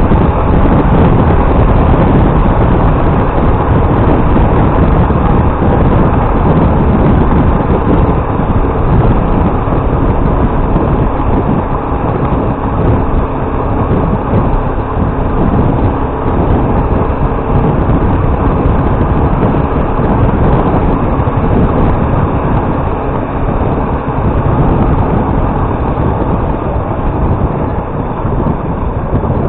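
Motorcycle running on the road, with a steady engine note under heavy wind and road noise on the microphone.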